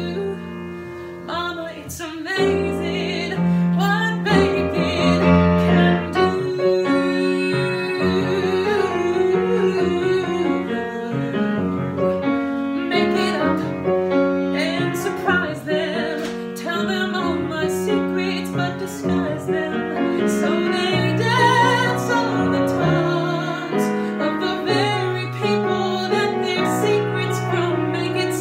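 A solo voice singing a musical-theatre ballad over piano accompaniment. Long held notes with vibrato sit over sustained piano chords.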